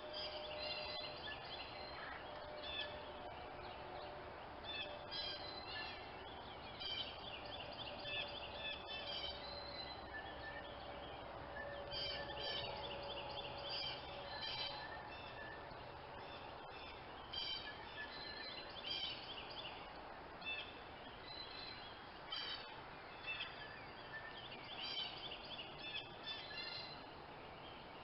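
Small birds chirping and calling over and over in short bursts, over a faint steady background noise.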